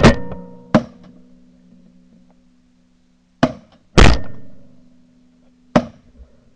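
Shotgun shots fired at flying geese: two loud close shots, one at the start and one about four seconds in, each ringing out briefly, with fainter shots about a second in, just before the second loud shot and near the end.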